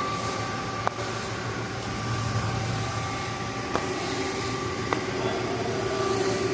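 Steady machine hum with a few sharp, isolated clicks.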